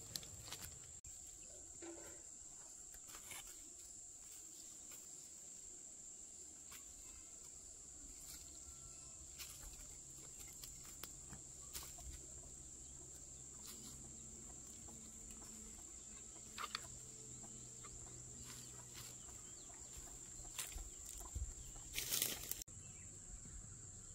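Faint outdoor ambience with a steady high-pitched insect drone, scattered light clicks and knocks, and a few louder knocks near the end.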